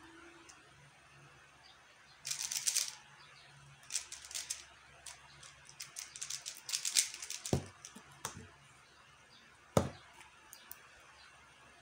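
QiYi X-Man Tornado V1 3x3 speedcube being turned fast: bursts of rapid plastic clicking and clacking, with a knock at about seven and a half seconds. A sharp thump, the loudest sound, near ten seconds as the cube is set down on the table.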